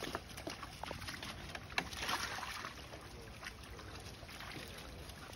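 Faint sloshing and splashing of water as dogs move in a plastic kiddie pool, with scattered light clicks and one sharper knock a little under two seconds in.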